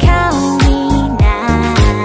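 Thai pop song playing: a steady beat of deep bass-drum hits that drop in pitch, about two a second, under a held, gliding melody.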